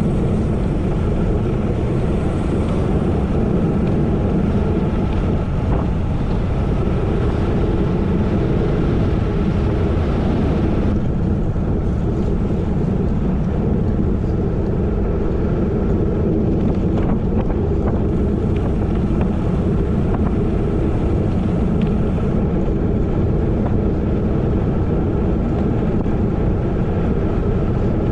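Steady wind rush on the microphone and rolling noise from a moving bicycle, strongest in the low end, easing slightly in the treble about a third of the way in.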